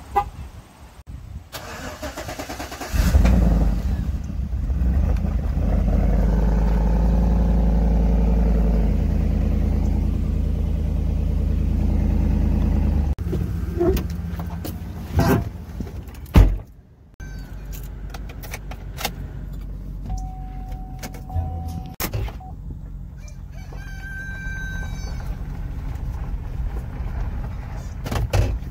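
2011 GMC Yukon's V8 engine starting about three seconds in and running loud and steady, with a few sharp knocks around the middle. It then idles more quietly, with a couple of short chime-like tones.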